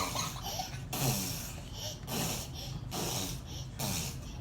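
Laughter, with a young child's voice laughing among it in short bursts.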